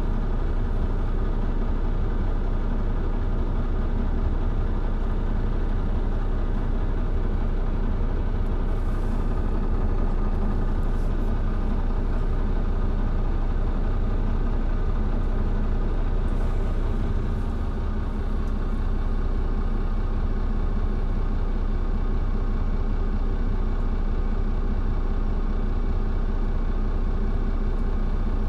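Mercedes-Benz Citaro C2 G hybrid articulated bus's diesel engine running steadily at an even speed, with a slight drop in loudness just past halfway.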